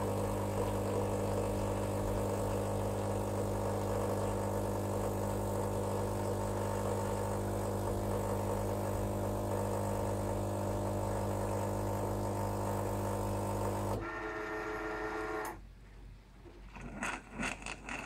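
Krups EA8200 bean-to-cup coffee machine's pump humming steadily as it dispenses coffee into the cup. The hum stops about fourteen seconds in, a different short hum follows for about a second and a half, then a few faint ticks as the cycle ends.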